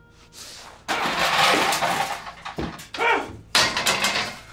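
A man letting out rough, wordless roars of rage in three bursts, a long one from about a second in and two shorter ones near the end.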